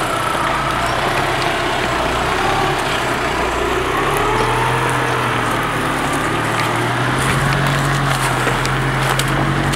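Volkswagen Amarok 4x4 pickup's engine running steadily at low revs as it crawls past over a rocky dirt track, a low hum with a faint whine above it that wavers gently in pitch.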